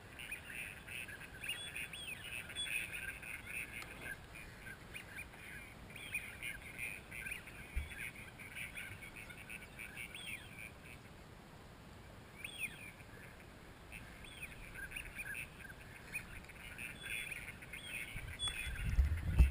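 A flock of wild ducks calling, many quick overlapping calls coming in waves with a lull about midway. A couple of low thumps near the end.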